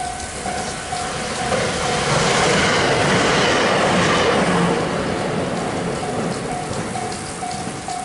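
An electric train passes close by at speed, growing louder to a peak about three seconds in, then fading with a falling rush. Throughout, a Japanese level-crossing warning bell rings steadily about twice a second, drowned out while the train goes by.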